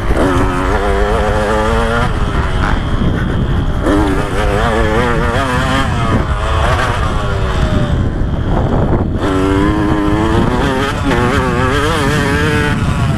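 KTM 125 SX two-stroke motocross engine revving hard through the gears, its pitch climbing and dropping again and again as the rider works the throttle. The throttle is shut off briefly a little after the middle, then it climbs again. Wind noise rumbles on the bike-mounted microphone.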